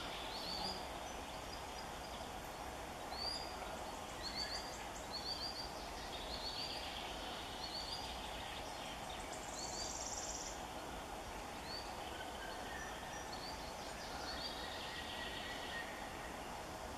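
Common sandpiper giving piercing alarm calls: short, high notes in quick twos and threes, thinning out after the first half, over a steady background hiss.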